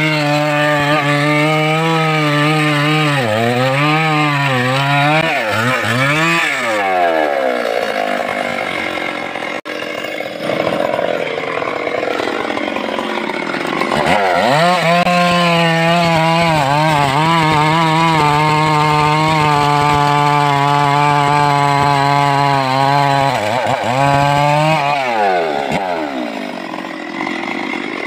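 Two-stroke chainsaw running at full throttle as it cuts into a teak trunk. Its high engine note wavers and drops in pitch as the chain bites, then winds down. After a rougher, noisier stretch, it runs a second long steady cut through the log and falls away in pitch near the end.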